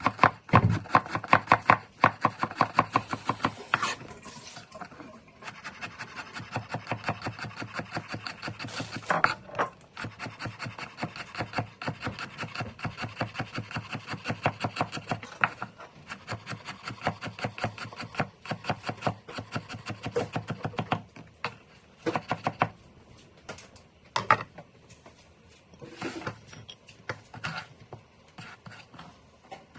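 A knife chopping rapidly on a wooden cutting board, many strokes a second. The strokes are loudest in the first few seconds, run on evenly through the middle, and thin out to a few separate knocks in the last third.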